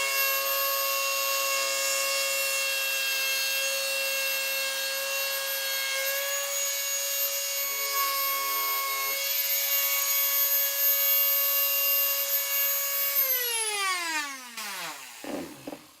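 Dremel rotary tool with a PL400 planer attachment running at full speed, a steady high whine with a rough rasping as the cutter shaves a chamfer on the wood edge. About thirteen seconds in the tool is switched off and the whine falls steadily in pitch as the motor spins down.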